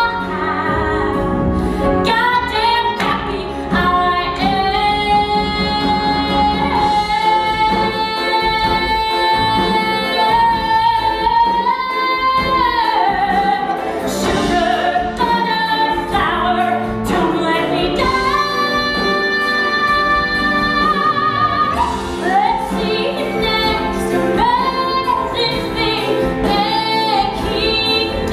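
A woman singing a musical-theatre song live over instrumental accompaniment, holding long sustained notes.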